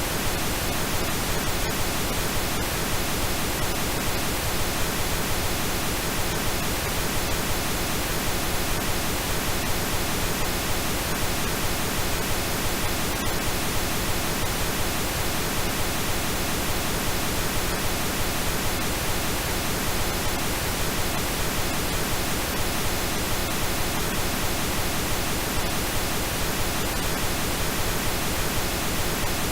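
Steady, electronically generated pink noise: an even, unchanging hiss.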